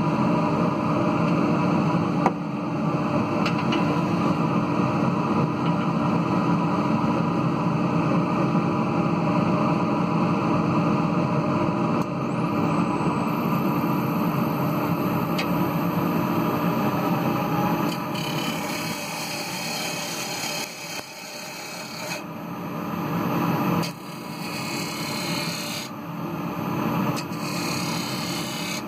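Wood lathe running with a steady hum while a gouge cuts the spinning ash bowl, a continuous rough scraping of steel on wood. From about two-thirds of the way in, the cut comes in short, higher-pitched passes that start and stop.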